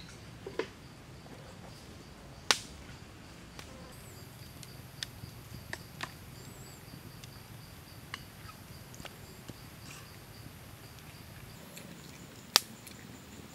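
Scattered light clicks and taps of a metal spoon against a plate and bowl while food is served, two much sharper than the rest, about two and a half seconds in and near the end. Under them runs a steady high-pitched insect drone.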